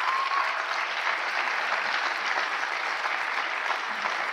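Large seated audience applauding, a dense, steady clapping.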